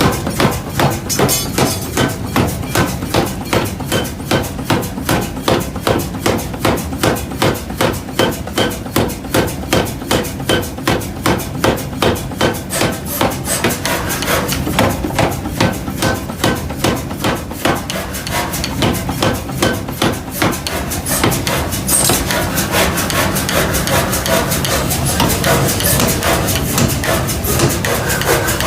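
Iron being forged with evenly spaced hammer blows on hot metal, about two a second. About twenty seconds in, the strikes become less distinct and run together into a busier metal clatter.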